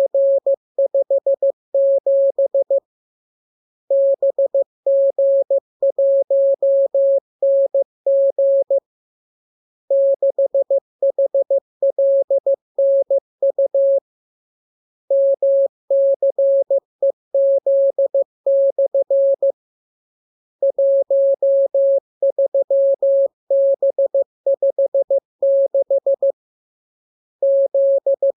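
Morse code practice signal: a single steady beep at about 600 Hz keyed on and off in dots and dashes, sent as groups of characters with pauses of about a second between groups.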